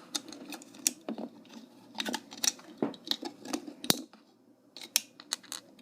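Irregular sharp clicks and scrapes of a toy handcuff being worked with a small toy pick, with a brief pause a little past the middle; the cuff is stuck and will not open.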